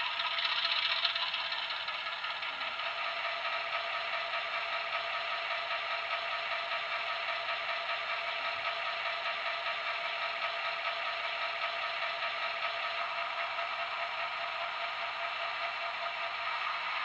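Sound decoder in a Y class model locomotive playing a recording of an EMD 6-645 diesel prime mover running steadily, with a rattling, knocking beat. Through the model's small speaker it sounds thin, with little bass. It is briefly louder with a hiss in the first second or two.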